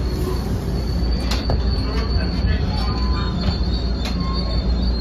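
NJ Transit Comet rail coach rolling on the rails with a steady low rumble; about a second in its wheels start squealing in a thin, steady high tone that runs on. A few sharp clunks sound through it.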